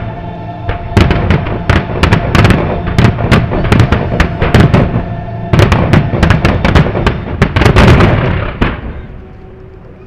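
Aerial firework shells bursting in a rapid barrage, many loud sharp bangs close together, over music. The bangs stop about eight and a half seconds in and die away.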